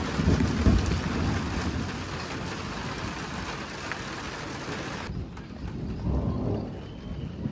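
Steady rain falling, a dense hiss of drops on the rooftop terrace, with low rumbles near the start and again near the end. About five seconds in, the hiss cuts off suddenly to a much lighter sound of rain.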